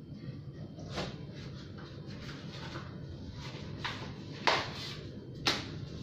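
A few sharp knocks and clacks from handling a new mountain bike, the loudest two about a second apart near the end, over a steady low hum.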